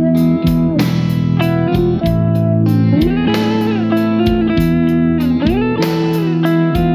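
Semi-hollow electric guitar playing a sung melody line, with bent notes and vibrato, over a backing track of drums and bass.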